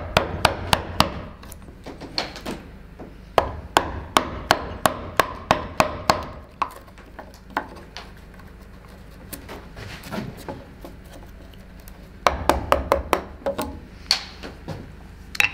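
Round wooden carver's mallet striking a carving gouge into a wooden log: runs of sharp knocks at about three a second, with softer, sparser taps between the runs.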